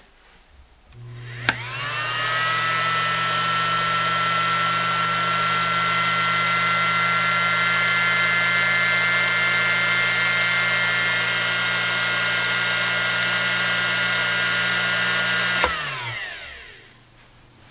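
Vintage Husqvarna Viking green-machine sewing machine running on its original 1.5-amp Husqvarna motor, foot pedal pressed all the way down. A click, then a whine spinning up over about a second to a steady high hum at full speed, held for about fourteen seconds. Near the end it falls in pitch as it winds down.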